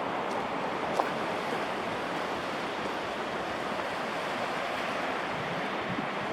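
Steady rushing noise of wind and sea surf, with a single sharp click about a second in.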